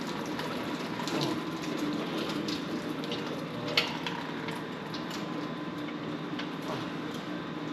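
Fluid left inside a Ford Coyote V8 pouring and splattering out of the engine after it is rotated over on its stand, a steady trickling wash, with a single brief knock a little under four seconds in.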